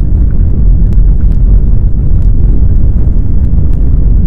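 Deep, loud, continuous earthquake rumble as the ground shakes, with scattered faint crackles over it.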